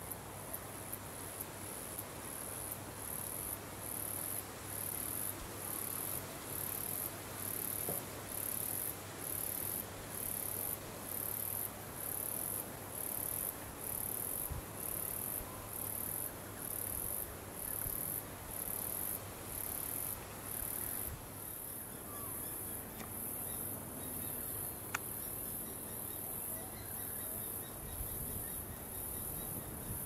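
An insect calling in a very high-pitched, rhythmic pulsing buzz, a little more than one pulse a second, repeated steadily.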